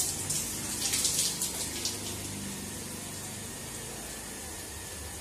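Water splashing off a hanging, hair-on goat carcass and dripping onto the floor as it is washed, in several splashes over the first two seconds, then settling to a steady hiss.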